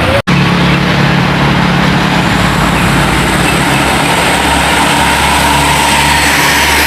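Heavy diesel road vehicle's engine running as it drives past, amid loud, steady road and tyre noise. There is a brief cut in the sound a moment after the start.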